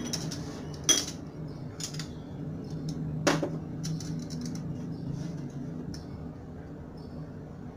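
Kitchen utensils clinking against dishes: a spoon in a bowl and wooden chopsticks stirring food in a metal steamer pot, with two sharper clinks about one and three seconds in. A steady low hum runs underneath.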